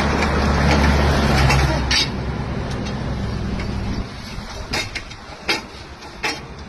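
A large vehicle's engine rumbling low, dropping away about four seconds in, with sharp knocks four times.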